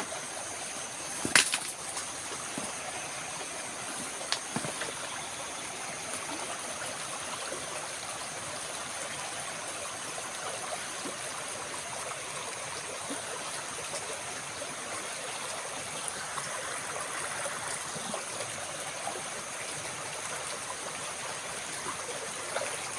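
Steady rush of flowing stream water, with a sharp click about a second and a half in and a fainter one a few seconds later.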